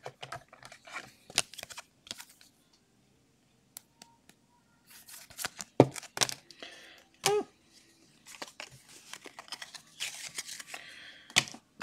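Trading cards and plastic card holders being handled on a table: scattered light clicks and short sliding rustles, with steadier rustling near the end.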